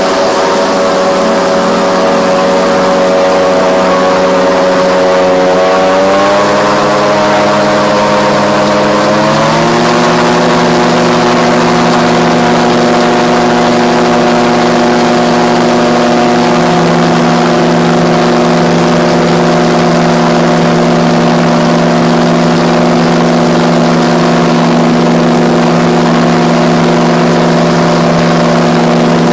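RAF 2000 gyroplane's engine and pusher propeller running steadily. About six seconds in it is throttled up, rising in pitch in two steps, then holds steady at high power for the takeoff roll.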